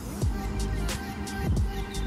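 Background music with a steady beat and deep sliding bass notes.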